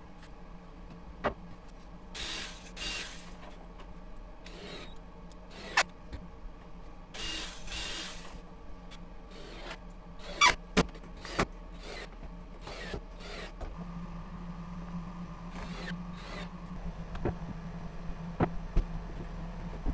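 Cordless drill-driver running in short bursts of about a second, driving screws through pine battens into a table top. Sharp knocks and clatters of boards and tools being handled come between the bursts.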